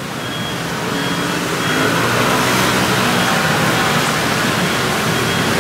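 Steady rushing of street traffic, growing louder about two seconds in and then holding steady.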